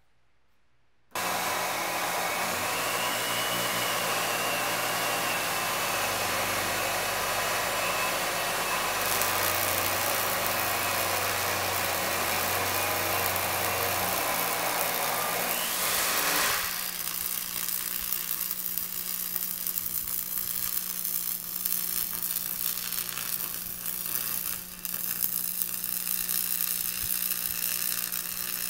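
Stick (arc) welding: the arc strikes about a second in and burns with a loud steady frying hiss. About two-thirds of the way through the sound changes to a quieter, uneven crackle over a steady low hum.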